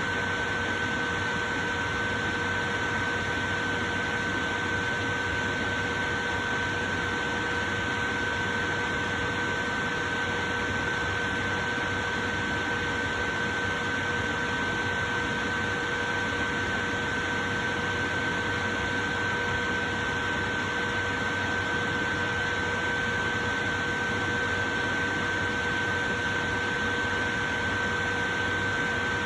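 Portable electric fan running steadily: an even rushing whir of moving air with a constant high whine on top.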